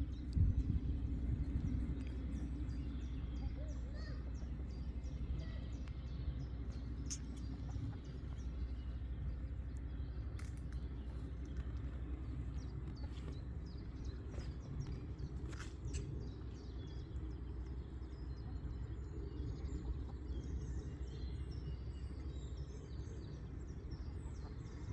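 Outdoor farmyard ambience: a steady low rumble with many faint, short, high chirps of small birds, and a few sharp clicks.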